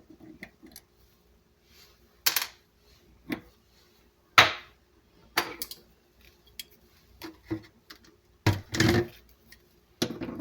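Scattered clinks and knocks of hand tools and metal faucet parts being handled while a faucet is taken apart, the sharpest about halfway through and a short cluster near the end.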